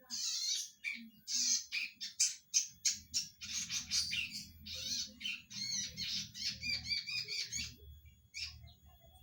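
Cisticola (cici padi) singing: a rapid, unbroken run of high, varied chirping notes that thins to a few scattered notes near the end.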